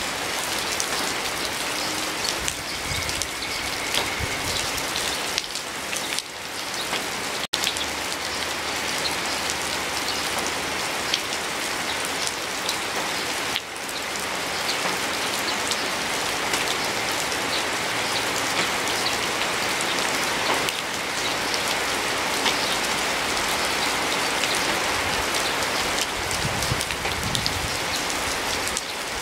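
Steady rain falling, a dense patter of many individual drops striking close by, with a momentary dropout about seven and a half seconds in.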